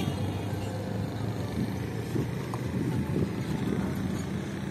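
Small van's engine running as it drives slowly over a railway level crossing close by, a low steady hum.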